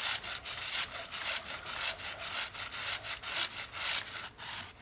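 Stiff-bristled chain-cleaning brush scrubbing a motorcycle drive chain coated in degreaser. Quick back-and-forth strokes, about two or three a second.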